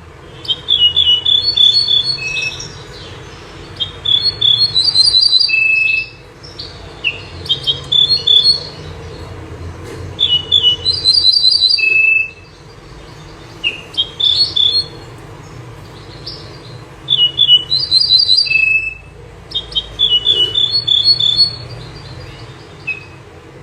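Songbird, the 'bouh zerhouni' or 'mnyar', singing short phrases of quick high chirps, each ending on a lower held note. About eight phrases come every few seconds over a faint steady hum.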